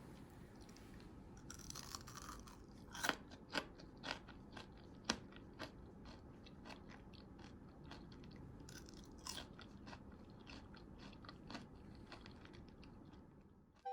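Someone biting and chewing crispy rice-flour-coated potato fries: irregular crisp crunches, the loudest a few seconds in, then softer chewing crunches.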